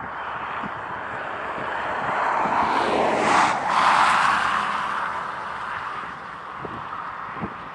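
A road vehicle passing on the highway beside the tracks: tyre and engine noise swells to its loudest about three to four seconds in, with a brief sweeping whoosh as it goes by, then fades away.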